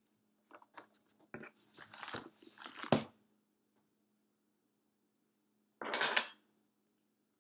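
Handling noise from a smartphone in a plastic case being picked up and turned in the hands: a run of clicks and rubbing for about three seconds, ending in a sharp click. A short rustle follows about six seconds in.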